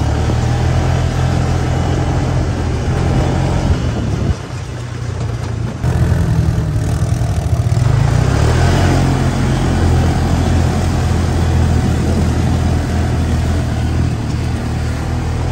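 A motor vehicle's engine running steadily, with road and wind noise; the sound drops for a second or two about four seconds in, then comes back.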